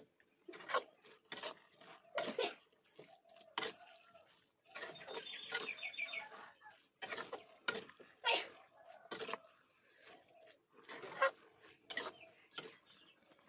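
Metal spatula scraping and knocking against a metal wok as pork leg pieces and glass noodles are stirred and tossed, in irregular strokes.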